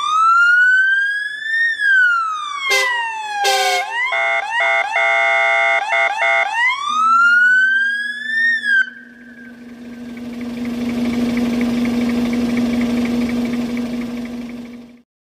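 Electronic fire-engine siren, driven by a PSS 200N modulator, cycling through its tones: a wail rising and falling, a brief rapid chattering burst, quick switching between two steady pitches, then another rise that cuts off about nine seconds in. A steady low hum with a swelling rush of noise follows and stops abruptly just before the end.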